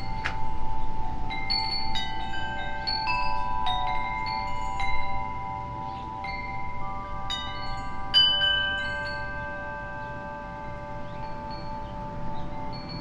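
Wind chime ringing: clusters of struck metallic notes that ring on and overlap. The notes come thickest in the first five seconds and again about seven to nine seconds in, with the loudest strike about eight seconds in, and thin out toward the end.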